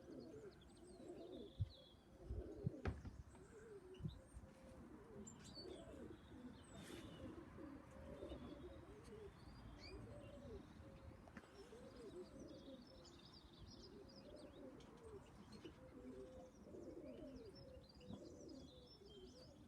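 Faint cooing from several domestic pigeons, one soft call after another, with a few thin high chirps from small birds. A handful of sharp knocks sound about two to four seconds in.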